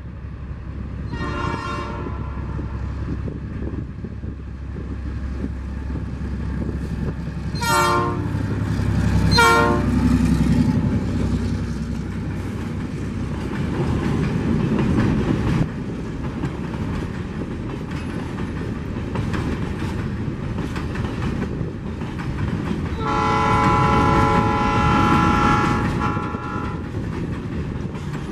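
EMD GR12 diesel locomotive passing close, its multi-tone horn sounding three short blasts in the first ten seconds over the rising rumble of its engine. Then a long train of empty hopper wagons rolls by with a steady rattle and clickety-clack of wheels on rail joints. About two thirds of the way through, the locomotive's horn sounds again in one longer blast of about three seconds.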